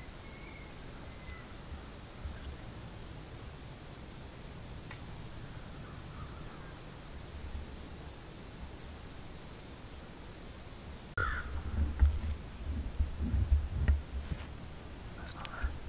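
Steady high-pitched drone of insects over quiet woods. About eleven seconds in, low bumping and rumbling of the camera being handled starts suddenly, with a couple of short harsh calls.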